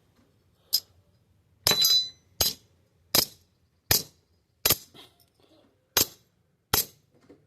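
Hammer tapping on a small bent steel hinge held in a vise, about eight sharp strikes roughly three-quarters of a second apart, each with a brief metallic ring.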